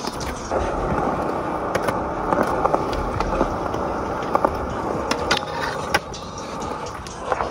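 Skateboard wheels rolling on a concrete skatepark surface: a steady rough rumble with scattered sharp clicks and knocks.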